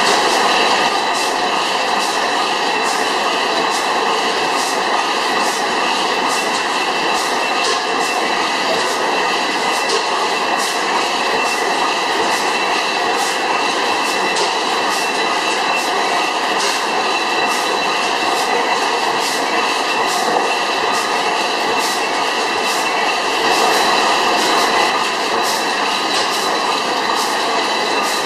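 300 hp Miller Improved stationary gas engine running steadily: a continuous mechanical clatter with an even run of sharp clicks over it.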